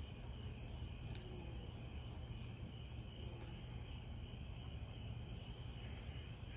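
Crickets chirping in a steady high-pitched chorus over a low steady rumble.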